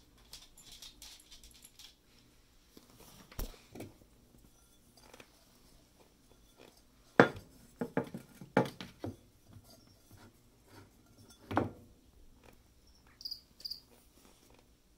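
Scattered knocks and taps, the loudest about seven seconds in, followed near the end by two short high chirps.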